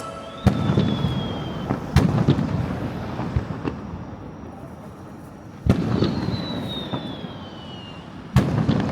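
Aerial fireworks shells bursting four times, each bang followed by a fading crackle and rumble. A high tone slides down in pitch after the first and third bursts.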